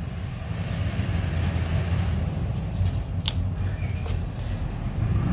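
Washi tape and paper rustling as they are handled on a planner page, with one sharp click a little past three seconds in, over a steady low hum.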